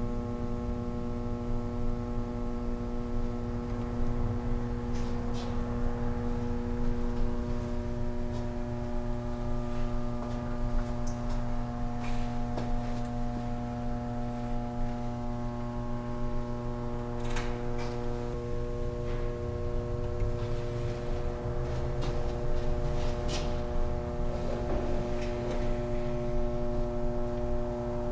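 A steady low hum with several higher tones held above it, some of which come and go partway through, and a few faint clicks.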